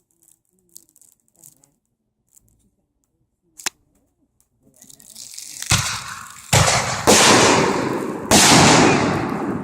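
Fireworks going off: after a quiet start and one sharp click, a rising hiss gives way to four loud bangs about a second apart, each trailed by crackling.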